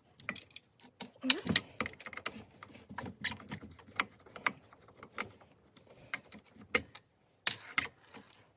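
Irregular clicks and taps of tools and hard plastic parts as the end cap is worked off a Makita DSS611 circular saw, with louder clacks about a second and a half in and again near the end.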